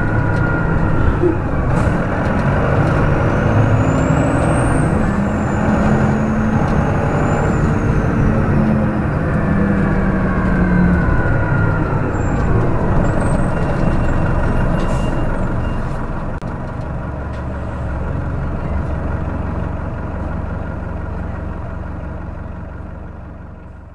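Detroit Diesel Series 50 8.5-litre diesel engine of a New Flyer D40LF transit bus running, heard close to the engine. Its pitch rises and falls over the first ten seconds or so, then it drops to a quieter, lower drone and fades out at the end.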